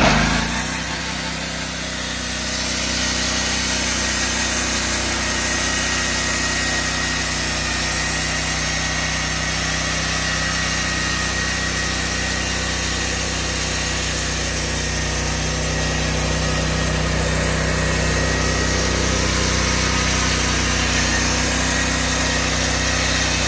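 Norwood portable band sawmill running steadily: a constant engine hum with a thin high whine from the saw.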